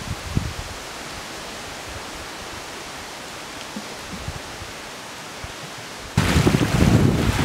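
Steady hiss of wind through pine trees, with a few soft footsteps on a needle-covered forest floor early on. About six seconds in it switches abruptly to loud wind buffeting the microphone and choppy lake water breaking against rocks.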